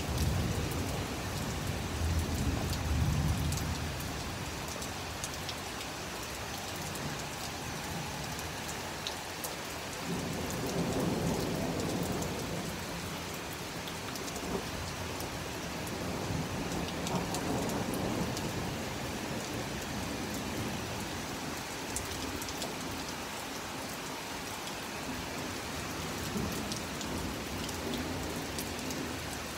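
Heavy rain falling steadily, with low rumbles of thunder swelling near the start and twice more later on.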